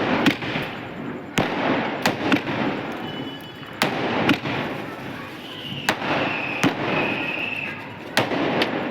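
Sky shot aerial fireworks going off: about ten sharp bangs at uneven intervals over a steady hiss.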